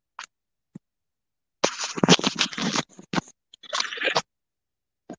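Scratching, rustling noise on a microphone lasting about two and a half seconds, broken by a short gap, with a few faint clicks before and after.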